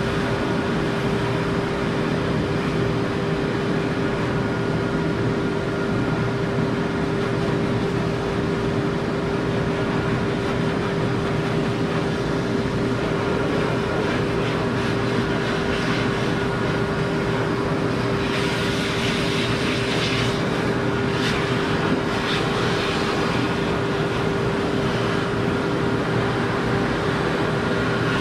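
Forced-air dog grooming dryer running steadily: a motor hum with a steady tone under a rush of air from the hose. The air rush turns hissier for a few seconds about two-thirds of the way through.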